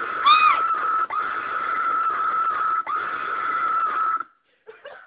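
A loud, high-pitched scream, held for about four seconds with two short breaks, cutting off sharply: a jump-scare.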